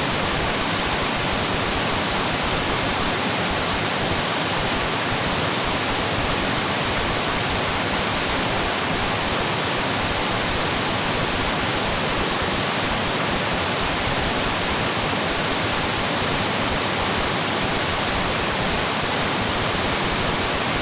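Television static: a steady, even hiss of white noise with no change in level.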